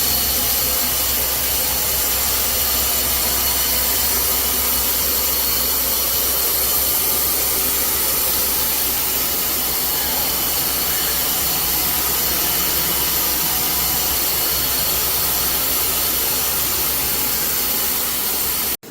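Steady rushing hiss and hum of running industrial machinery, such as fans or air-handling equipment, with several constant high-pitched tones over it. It cuts off abruptly near the end.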